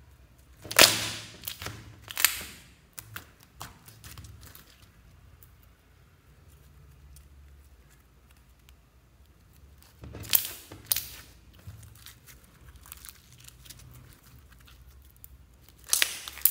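Soft slime being stretched, folded and squeezed by hand, making sharp popping and crackling sounds in clusters: about a second in, again around ten seconds, and near the end.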